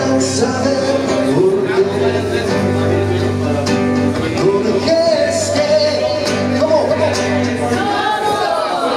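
A man singing to his own nylon-string classical guitar accompaniment, the sung melody sliding between held notes over the guitar.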